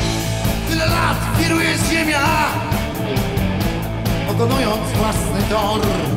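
Live blues-rock band playing with drums and electric guitar and a steady beat. A man's voice comes in at times over the band.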